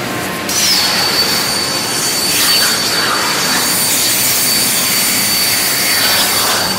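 CNC plasma torch cutting steel plate, powered by a Hypertherm HyPerformance plasma system: a loud hiss with a steady high whistle that starts about half a second in after a brief wobble in pitch and dies away just before the end, over a steady machinery hum.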